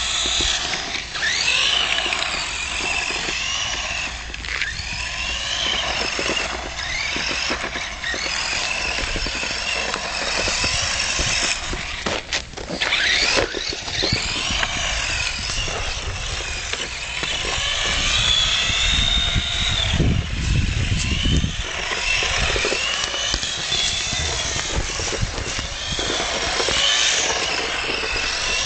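Electric on-road RC car running on a motor taken from a drilling machine, with a high motor whine that rises and falls in pitch again and again as it speeds up and slows down.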